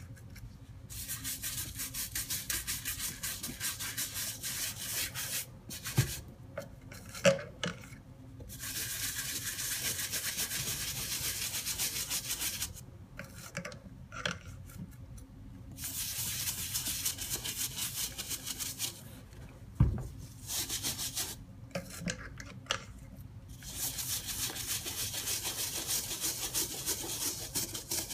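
A cleaning brush scrubbing a 1999 Air Jordan 15 sneaker in quick, even strokes, in four long spells. Short pauses between the spells hold a few knocks, the loudest about twenty seconds in.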